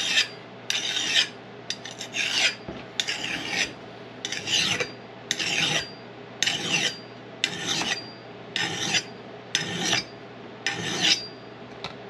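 A handheld sharpener rasping along the steel edge of a tomahawk's head in even strokes, about one a second.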